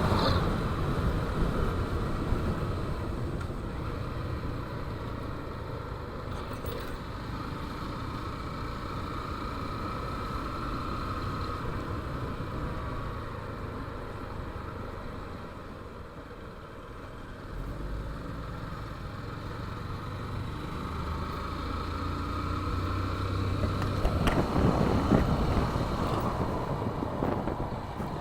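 Small motorcycle engine running under way, with wind and road noise. About halfway through it eases off and goes quieter, then picks up and builds again.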